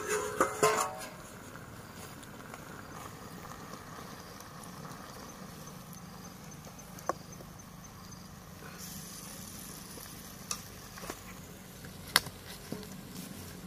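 A wok of steamed cabbage and pork simmering and sizzling softly over a crackling wood fire, with a few sharp isolated clicks. A brief metallic clatter sounds in the first second.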